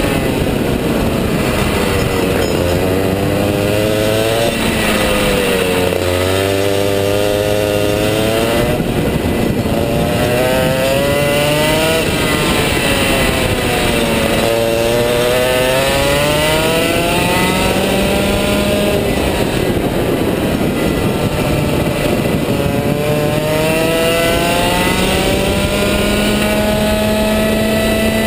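Rotax Max 125 cc single-cylinder two-stroke kart engine at racing speed, its pitch falling as it slows for corners and climbing again as it accelerates out, several times over. Near the end it pulls a long, steadily rising note down the straight.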